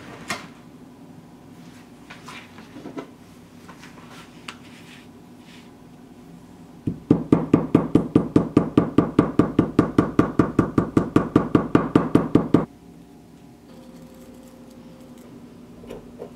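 A hammer tapping the stitched edge of a leather wallet lying on a stone slab: a quick, even run of sharp knocks, about six a second, lasting some six seconds before it stops abruptly. A few light handling clicks come before it.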